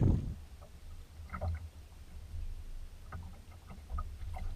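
Water lapping against the hull of a bass boat sitting on the lake, with a steady low rumble and a few faint, scattered ticks.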